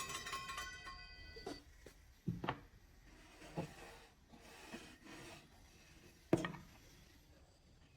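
Scattered wooden knocks and taps with some light rubbing, as of wood pieces and tools being handled and set down on a bench; the loudest knock comes a little past six seconds in. Background music fades out at the start.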